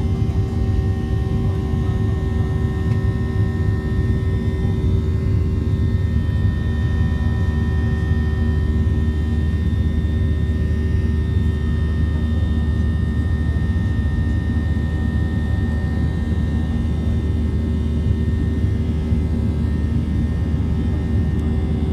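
Cabin noise of a Boeing 737-700 climbing after takeoff: its CFM56-7B jet engines give a steady low rumble with several steady whining tones over it.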